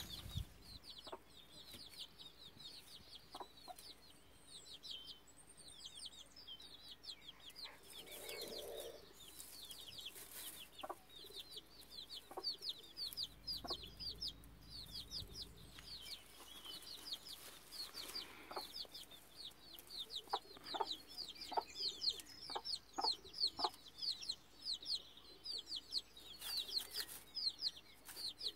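Gauloise dorée chicks peeping without a break in quick, high, falling cheeps. The hen clucks in short calls now and then, more often in the second half.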